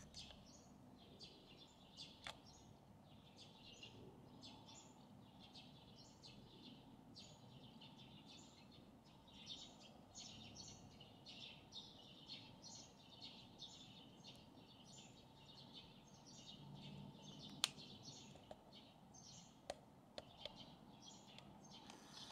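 Faint birdsong: short, high chirps repeating about twice a second over a quiet low background, with a single sharp click about three-quarters of the way through.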